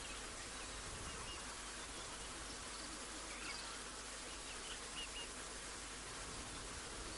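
Dusk bush ambience: faint, scattered high chirps over a steady background hiss.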